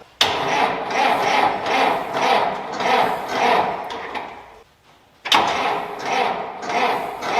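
Old 11-ton forklift's engine being turned over by its starter on a test start after the clutch and gearbox were refitted: a pulsing churn about every half second. The first attempt stops about four and a half seconds in and a second one starts about a second later.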